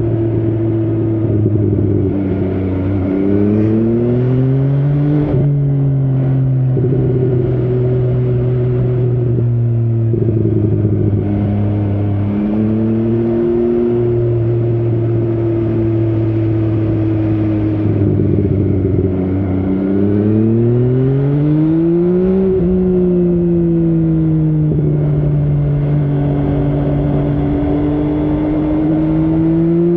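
MV Agusta Brutale 800's three-cylinder engine heard from on board while riding. The pitch rises under acceleration and drops sharply with an upshift about five seconds in and again about two-thirds of the way through. In between it holds a steady cruise, then picks up again near the end.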